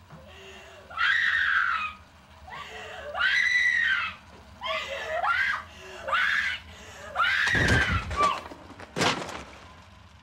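A person screaming: five or six high-pitched screams of about a second each, with a sharp knock near the end.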